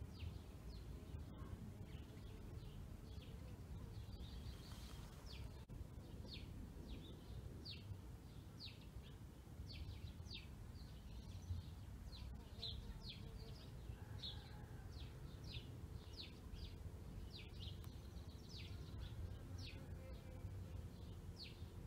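Faint chirping of small birds: many short, high chirps, one or two a second, coming more often after the first few seconds, over a low steady background rumble.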